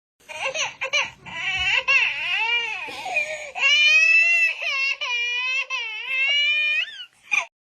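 Baby crying: a high-pitched wail whose pitch wobbles up and down, in several breaths, stopping about seven seconds in.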